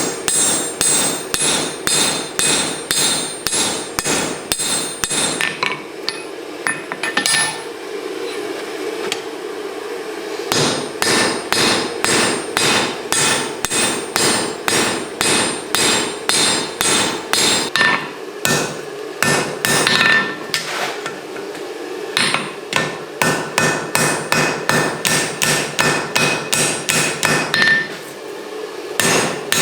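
Blacksmith's hammer striking hot steel on an anvil, about two to three ringing blows a second, as a corner of a tong jaw is drawn out. The hammering stops for a few seconds about six seconds in and briefly again about two thirds of the way through, over a steady hum.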